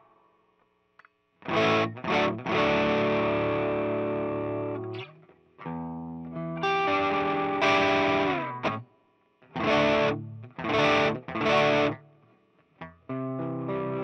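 Electric guitar played through a home-built Tube Screamer-style overdrive pedal into a Marshall valve amp, playing overdriven chords. After a short silence it plays two short stabs, then held chords that ring out, three more quick stabs near the end, and a final held chord.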